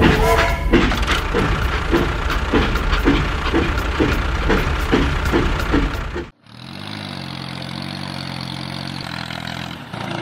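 A machine running loudly with a regular pulse about twice a second, cut off abruptly about six seconds in. A steadier, quieter hum follows, its pitch dipping slightly.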